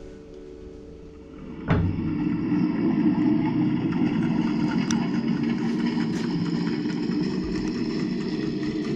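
A steady engine-like drone that starts abruptly under two seconds in, then runs loud and unchanging, with a constant low hum.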